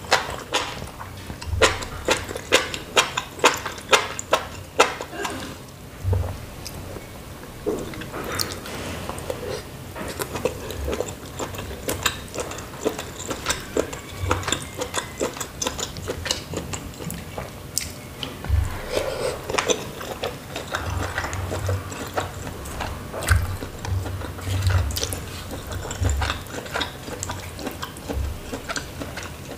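Eating sounds of a person eating noodle soup: rhythmic wet chewing in the first few seconds, about two chews a second, then a longer stretch of slurping and chewing noodles in broth, with frequent small mouth clicks.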